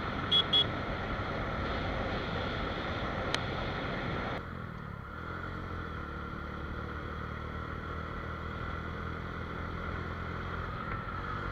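Motorcycle riding with heavy wind and road noise, with two quick horn beeps right at the start. About four seconds in, the sound changes abruptly to a quieter, steady engine hum.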